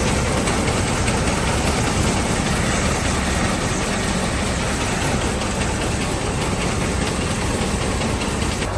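Engine-driven farm machine running steadily, a continuous dense noise without pauses.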